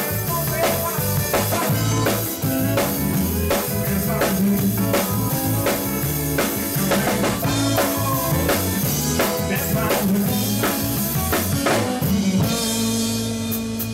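Live country band playing with a drum kit keeping a steady beat under bass and guitar. About a second before the end, the band holds one long chord over a ringing cymbal.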